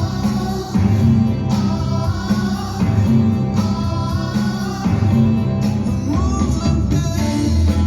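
A recorded song with guitar and a singing voice, played back through hi-fi loudspeakers driven by a Technics SU-V85A amplifier.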